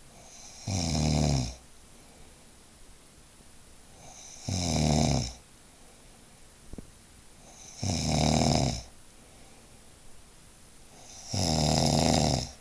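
A man snoring in his sleep: four long, loud snores about three and a half seconds apart, each a low buzzing rattle with a hiss of breath, and quiet breathing between them.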